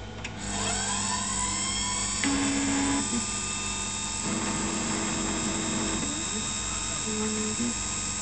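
Emco Compact 5 CNC lathe spindle starting up: a click, then a motor whine that rises in pitch for about two seconds and settles into a steady run. Over the spindle, the axis stepper motors' tones start, stop and change pitch several times as the carriage moves.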